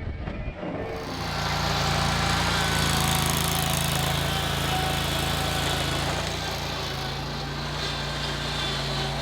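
Diesel engine of a compact John Deere machine running at working speed: it comes up about a second in, holds steady, and eases slightly after about seven seconds.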